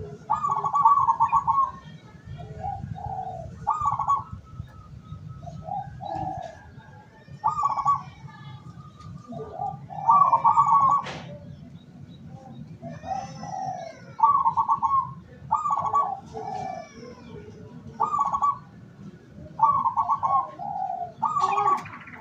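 Local zebra dove (perkutut) cooing: the typical rolling call phrase repeats every two to three seconds, with softer answering coos in between. Faint chirps of other small birds and a low background rumble lie underneath.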